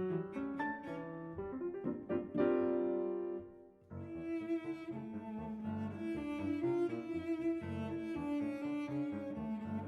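Background music: struck piano and mallet notes end on a held chord that fades away, and about four seconds in a slow piece with cello and piano begins.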